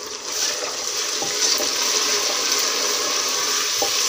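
Freshly added chopped tomatoes sizzling in hot oil with fried spring onions in a pressure cooker, a steady hiss that swells about half a second in, as a silicone spatula stirs with a few light knocks against the pot.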